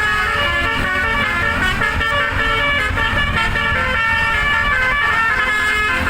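Bus 'telolet' modular musical air horn playing a fast melody of short notes that change pitch every fraction of a second, over a low rumble of vehicle engines.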